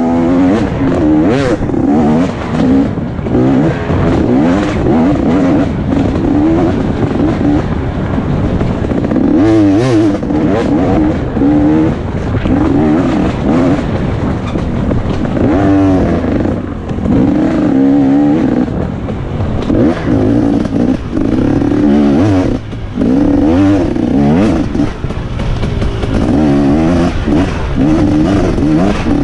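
2017 KTM 250 XC-W two-stroke dirt bike engine under hard riding, revving up and down continuously with the throttle and gear changes, with a few brief throttle cuts.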